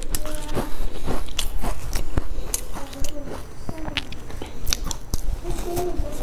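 Close-miked biting and chewing of a large sesame cookie that has been dunked in a white liquid: crunching, with many short sharp clicks throughout.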